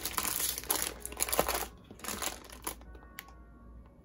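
Clear plastic packaging crinkling as it is handled around a small PVC collect binder. One long stretch of crinkling, then a shorter one, dying down near the end with a faint click.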